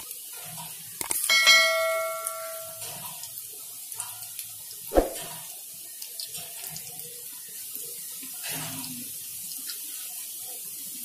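Moong dal pakodas deep-frying in hot oil in a kadai, a steady sizzle. A bell-like chime from a subscribe-button sound effect rings about a second in and fades after a second and a half. One sharp tap comes about five seconds in.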